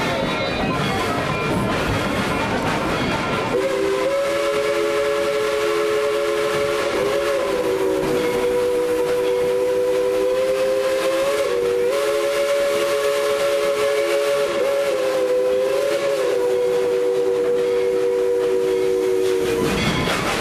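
Steam locomotive's chime whistle blown in one long blast of about sixteen seconds, three notes sounding together, with a few brief wavers in pitch. The train's running noise fills the first few seconds and the end.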